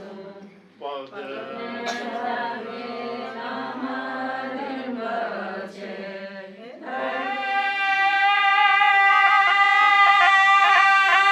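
Low-pitched sung chanting with a wavering, unbroken line. About seven seconds in, a louder music passage with a bright, held high melody takes over and swells.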